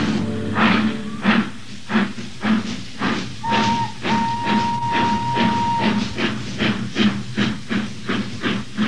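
Steam locomotive chuffing in a steady rhythm, about two exhaust beats a second and quickening slightly as the train gathers speed. A whistle sounds about three and a half seconds in: a short blast, then a longer held one.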